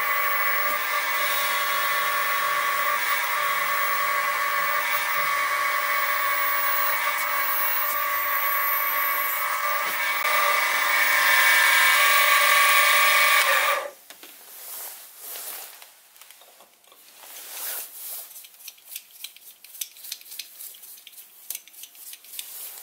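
Sieg SX2P mini mill spindle running with a steady whine as a 2.6 mm drill bores through a brass conrod; the motor cuts off suddenly about 14 seconds in. Quieter clicks and handling sounds follow.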